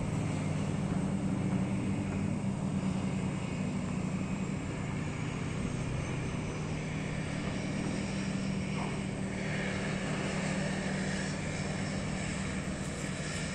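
Propeller engines of a skydiving plane droning steadily as it comes in to land.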